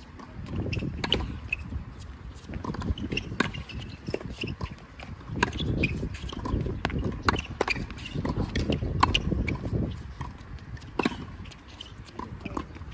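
Tennis rally on a hard court: sharp, irregular pops of the ball struck by rackets and bouncing, with quick shuffling footsteps between shots, over a low rumble.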